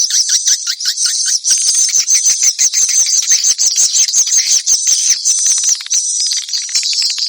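Swiftlet call sound, the type of recording played to lure edible-nest swiftlets. It is a continuous chatter of rapid high chirps and twitters over fast clicking, with a brief lull near the end.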